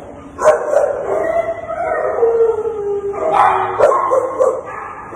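Kennelled shelter dogs barking and howling: a long howl that sinks slowly in pitch about two seconds in, followed by a quick run of short barks.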